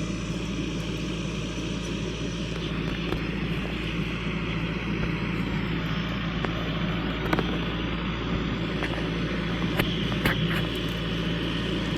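A vehicle engine running steadily with an even low drone, with a few light clicks and knocks over it.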